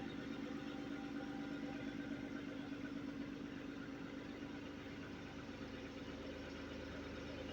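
Vacuum cleaner motor running steadily, used as a blower on snow: a constant hum over a hiss of rushing air.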